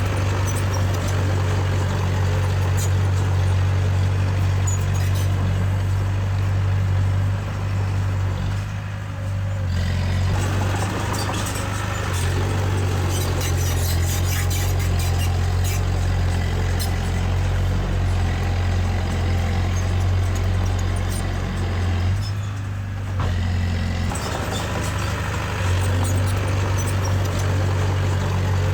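Diesel engine of heavy earthmoving machinery running steadily under load, with a deep hum that eases off briefly twice, and light metallic clanks and ticks over it.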